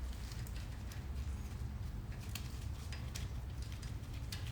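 Scattered faint clicks and taps of a bolt and small metal parts being handled and threaded in by hand, over a steady low hum.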